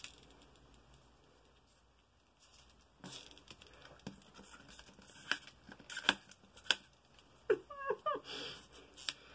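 Plastic wrapping on an LOL Surprise ball being torn and crinkled, starting about three seconds in, with several sharp plastic snaps and a few short squeaks. The perforated wrap will not tear cleanly and is being picked and bitten open.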